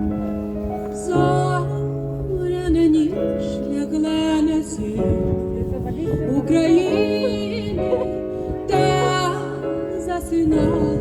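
Slow piano ballad: held keyboard chords under a female voice singing in short phrases.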